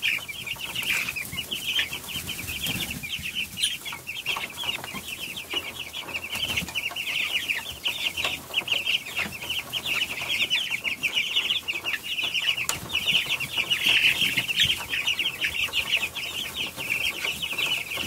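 A flock of two-week-old Cornish Cross broiler chicks peeping continuously, many high, short chirps overlapping.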